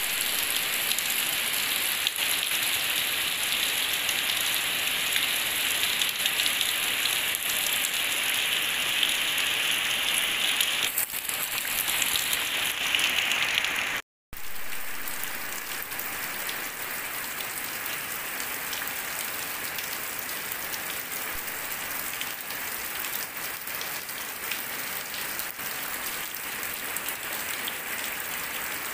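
Heavy rain falling on wet concrete and puddles: a steady hiss of drops. It cuts out briefly about halfway through and comes back slightly quieter, with raindrops pattering into a puddle.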